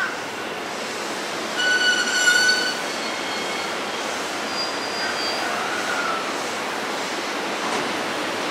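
A train running through the station with a steady rumble, and a brief high-pitched tone about two seconds in, with fainter short tones a few seconds later.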